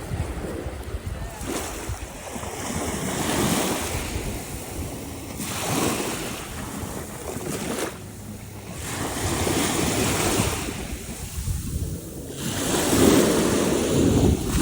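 Sea waves washing onto a beach, surging and ebbing every few seconds, with wind buffeting the microphone.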